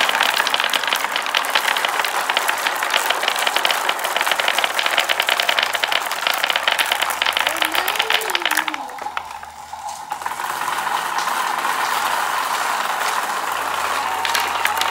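Many glass marbles rolling and clattering down wooden zigzag marble-run tracks into a wooden tray: a dense, fast stream of clicks that stops about nine seconds in. After a brief lull a steadier hiss with a faint held tone takes over.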